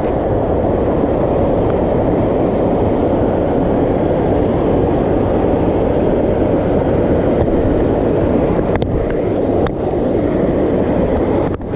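Steady low rumbling noise on the camera's microphone, with a couple of faint clicks near the end.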